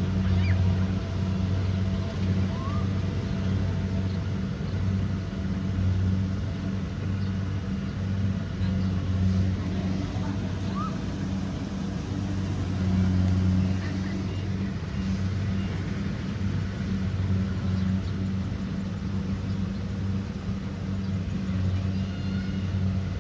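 Kubota DC70 Pro combine harvester running steadily in a rice paddy: a continuous low diesel engine drone that rises and dips slightly in loudness.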